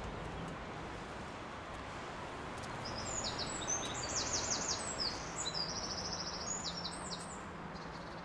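A small songbird singing a run of high chirps and quick trills, starting about three seconds in and stopping near the end, over a steady outdoor background hiss.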